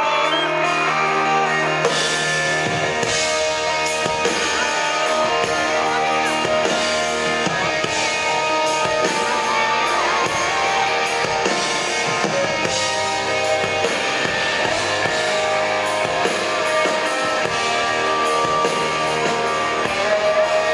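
Live rock band playing, with guitar and a drum kit; the drums and cymbals come in about two seconds in.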